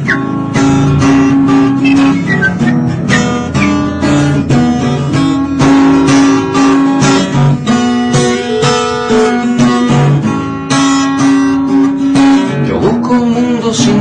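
Instrumental passage of a song, with no singing: acoustic guitar strumming chords, with held notes ringing under the strums.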